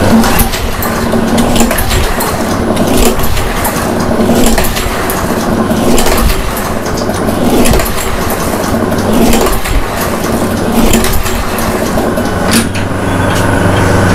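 Gasoline push mower's pull-start worked over and over, the engine turning over in rough surges every second or two without catching: it will not start despite fresh gas and a new spark plug.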